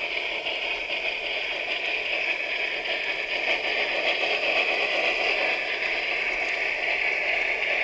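Sound module of a garden-scale model steam rack locomotive playing steady steam-locomotive hiss, a recording of the Ballenberg steam railway's HG 3/3, as the model runs along the track.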